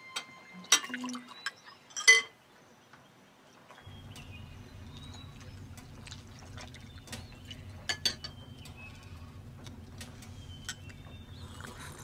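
Light clinks of dishes and utensils against tableware during a meal, the sharpest about two seconds in, with fainter clinks later. A low steady hum sets in about four seconds in.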